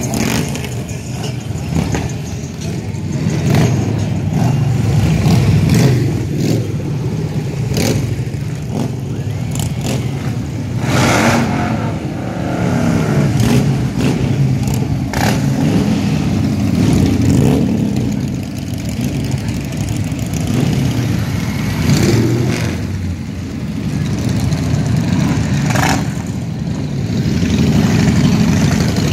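A parade of large touring and cruiser motorcycles riding past one after another. Their engines run in a continuous low drone that swells and fades as each bike goes by.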